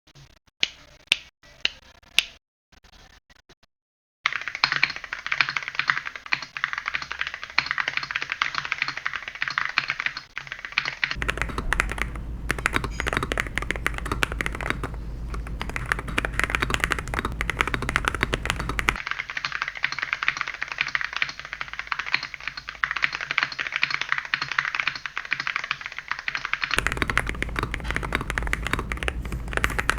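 Typing on a Weikav Sugar65 mechanical keyboard fitted with Akko Black and Akko V3 Cream Yellow Pro switches: a few single key clicks, then fast continuous typing from about four seconds in. The sound changes abruptly three times as the recording switches between the two switch types.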